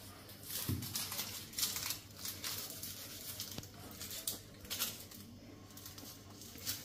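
Red onion being peeled and trimmed with a kitchen knife: irregular crackling and tearing of its dry papery skin, with a soft knock under a second in.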